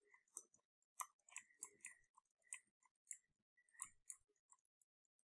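Near silence with about a dozen faint, irregular little clicks and taps from working a computer's pointing device during digital sculpting.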